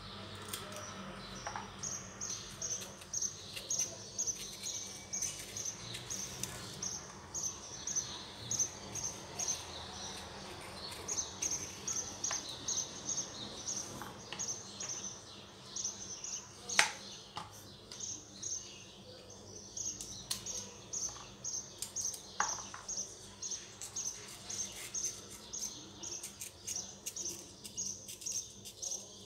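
Small birds chirping over and over, a short high chirp about twice a second. A few sharp clicks come from a knife cutting green beans against a plastic cutting board; the loudest is about two-thirds of the way through.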